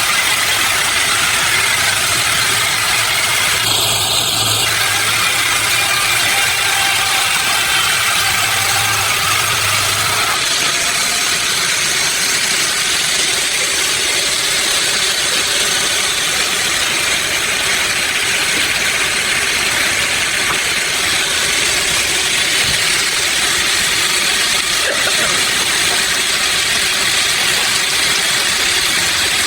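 Sawmill machinery running with a loud, steady noise. There is a short beep about four seconds in, and a low hum underneath stops about ten seconds in.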